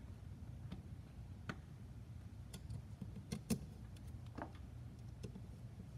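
Light, scattered clicks and taps of carbon-fibre drone frame plates and small screws being handled, about seven in all, the sharpest about three and a half seconds in, over a low steady hum.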